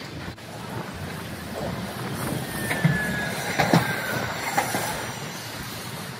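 Hiroshima Electric Railway Green Mover LEX low-floor tram passing close by. Its wheels squeal on the rails for about two seconds with a slightly falling pitch, and there are a few sharp knocks from the wheels on the track.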